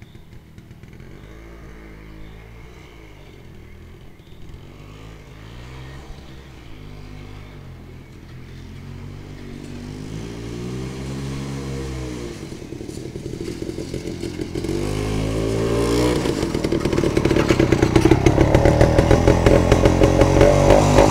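Jawa 250/353 motorcycle's single-cylinder two-stroke engine approaching, its revs repeatedly rising and dropping back as it rides. It grows steadily louder until it is close near the end.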